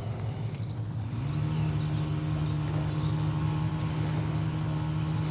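Engine of distant working machinery running with a steady low hum. It picks up with a brief rise in pitch about a second in, then holds steady.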